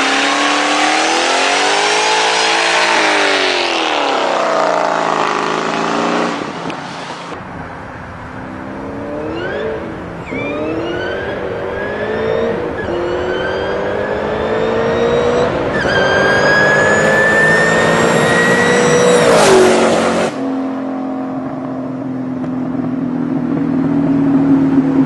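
Performance car engines fitted with turbochargers or superchargers: first an engine revving up and down, then an engine accelerating hard through several gears with a high whine that climbs with engine speed, cut off suddenly near the end by a steadier, lower engine note.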